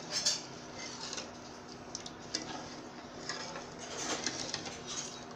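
A metal spoon stirring tamarind chutney in a nonstick pan, with light scattered clicks and scrapes as it touches the pan, over a faint steady low hum.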